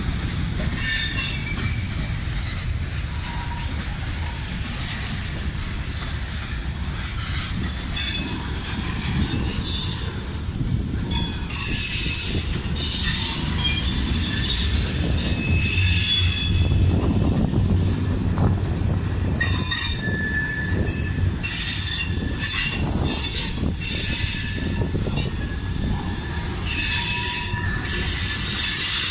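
CSX freight train of loaded rock cars rolling past, its wheels squealing in high, on-and-off tones over a steady low rumble as the cars take the turn from one line onto another.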